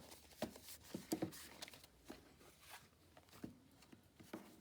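Faint rustles and light taps of paper sheets being handled and laid together, a few scattered soft touches.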